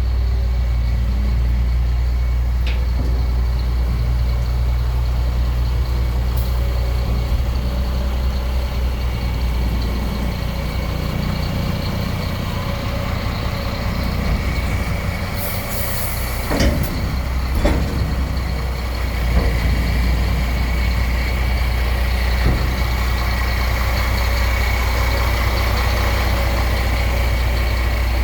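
KAMAZ 45143 dump truck's Cummins diesel engine running steadily. About halfway through there is a short hiss of released air, typical of the truck's air brake system, followed by two sharp knocks.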